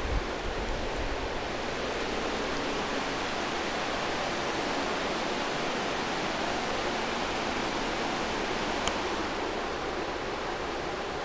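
Steady rushing hiss with no tone or rhythm in it, with a few low bumps right at the start and a short tick about nine seconds in.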